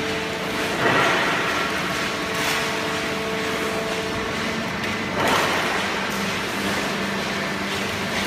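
Horizontal hydraulic baling press running while it compresses paper: a steady machine hum, with two louder rushing surges, about a second in and again about five seconds in.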